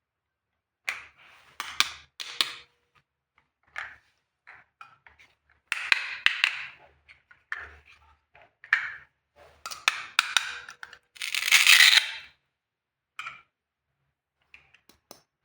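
Small plastic toy kitchen pieces being handled: irregular clicks, taps and scrapes, with a longer swishing rustle about eleven seconds in.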